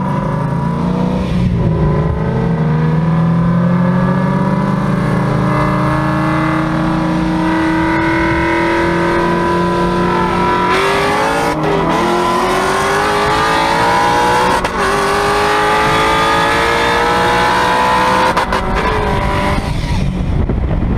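Shelby GT500's supercharged V8 under hard acceleration, its pitch climbing through the gears with upshifts at about eleven, fifteen and eighteen seconds in. Near the end the engine eases off and wind rushing past the open convertible takes over.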